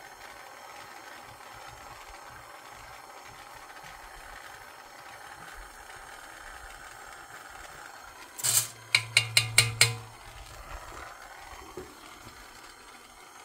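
Hand torch flame hissing steadily while molten solder is brushed out to tin the back of a sterling silver overlay. About eight seconds in there is a short loud burst, then a quick run of about six sharp clicks.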